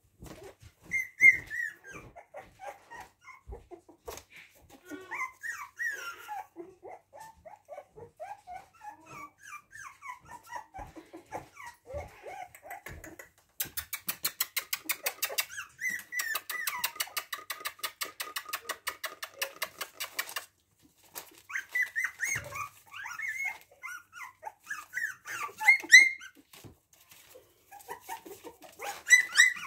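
A litter of 3.5-week-old puppies whining and yelping in many short, high-pitched calls. For several seconds in the middle there is also a rapid, evenly spaced pulsing sound.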